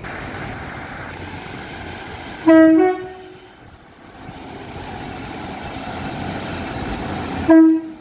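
Two short train horn blasts from British diesel multiple units, about two and a half seconds in and again just before the end, the first stepping up from a lower to a higher note. Between them the steady rumble of an approaching train grows louder.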